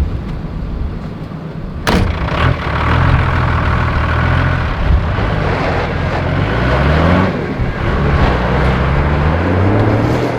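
Toyota LandCruiser 45 Series ute's engine pulling away and accelerating. Its pitch climbs, drops at each gear change and climbs again, after a sharp knock about two seconds in.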